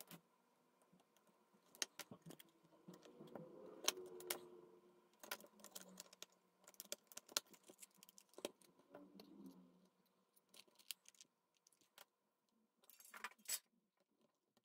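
Faint handling clicks, taps and light scraping as a Sony WM-F15 Walkman's red plastic case is pressed back onto its chassis, with a quick run of clicks near the end.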